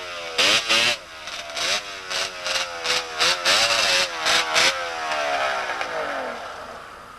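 Racing snowmobile two-stroke engines revving in quick repeated blips, the pitch jumping up and down. After about five seconds the engine pitch falls and the sound fades away.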